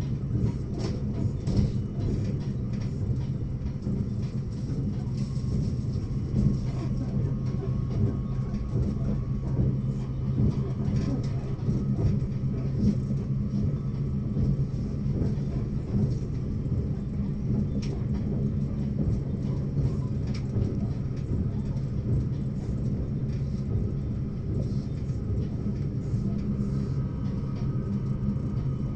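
Steady low rumble of a vehicle in motion, with a constant low hum and scattered faint clicks.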